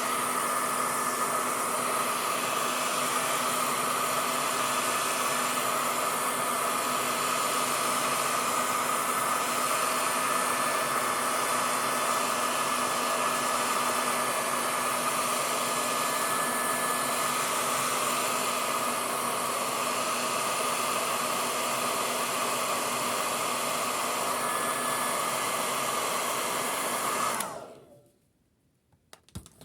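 Handheld hair dryer running steadily, a rushing blast of air with a steady motor whine, then switched off near the end and dying away quickly.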